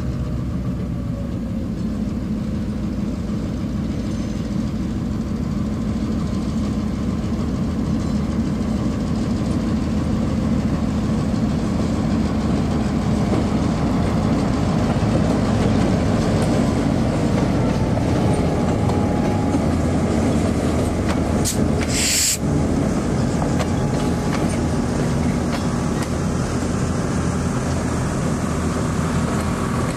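Santa Fe EMD GP9u switcher locomotive's diesel engine running steadily as it pulls a cut of refrigerator boxcars past, with the cars rolling on the rails. It grows louder as it draws near, and a short sharp hiss cuts in about two-thirds of the way through.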